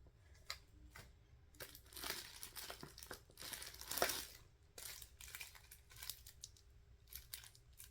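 Packaging crinkling and rustling as items are handled and unwrapped, in a few bursts that are loudest about four seconds in, followed by scattered light clicks.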